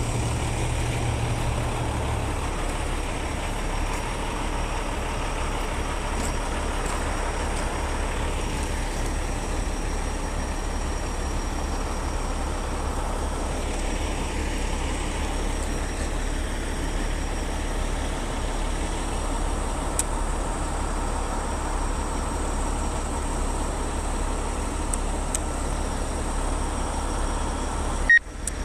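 Heavy diesel tow trucks running steadily at idle, a continuous low rumble under a broad hiss. Two short high beeps sound near the end.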